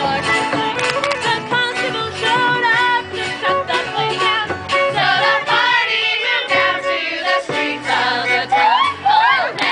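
A tavern song sung live with instrumental accompaniment; the sung notes waver with vibrato over a steady backing.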